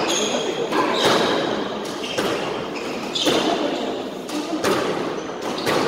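Squash rally: the rubber ball cracking off racquets and the court walls in a string of sharp hits, with rubber-soled court shoes squeaking on the wooden floor between the shots.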